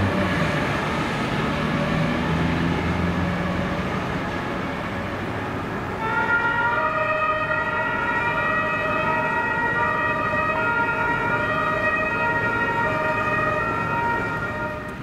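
Ambulance pulling away with engine and traffic noise. About six seconds in, its German two-tone siren (Martinshorn) switches on and keeps switching back and forth between two pitches.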